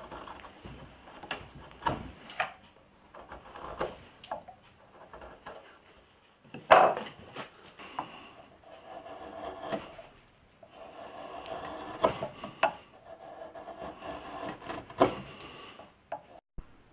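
Hand-pushed wood chisel paring shavings off a block of wood in a series of cutting strokes. One sharp, loud stroke comes about seven seconds in, and longer unbroken cuts run through the second half.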